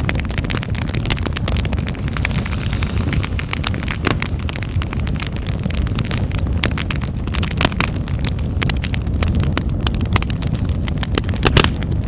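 Wood fire in a fireplace crackling, a dense run of small pops and snaps over a steady low rumble of the flames, with one louder pop near the end.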